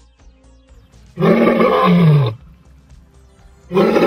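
A lion roaring twice, each roar about a second long and dropping in pitch as it ends.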